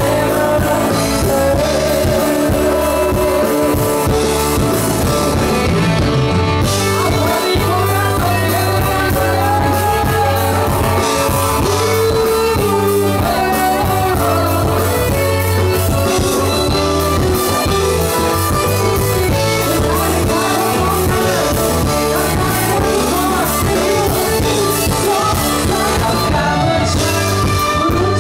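Live band music with a singer, played loud through a concert sound system.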